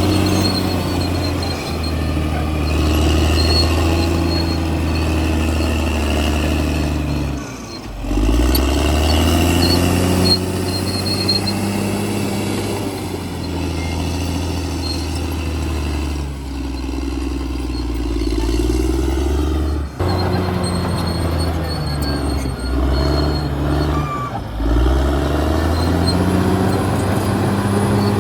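Caterpillar D6R XL bulldozer's diesel engine running under load. Its note drops briefly and recovers a few times as the load changes.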